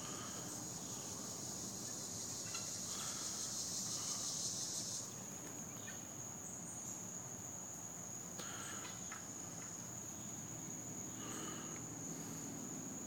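Insects trilling steadily at a high pitch, with a louder buzzing layer that cuts off suddenly about five seconds in. Two short calls come about eight and eleven seconds in.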